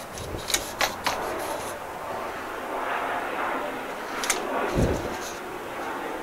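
Handling noise from a vertical antenna's white tube being worked on a plastic table: a few sharp clicks and light knocks, with a dull thump about three quarters of the way in.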